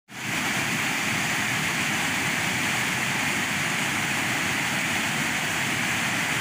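Floodwater pouring over the spillway of an overflowing reservoir dam, a steady, even rushing noise; the reservoir is full and spilling after heavy rain.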